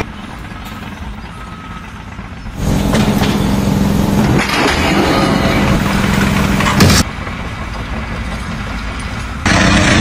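Machine engines running in a series of short clips: a steady engine hum starts about two and a half seconds in, a single sharp crack comes about seven seconds in, and a louder engine runs near the end.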